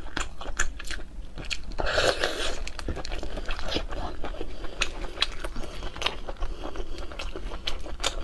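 Close-miked eating: biting into and chewing sausage, with many sharp wet clicks and smacks, and a louder stretch of noise about two seconds in.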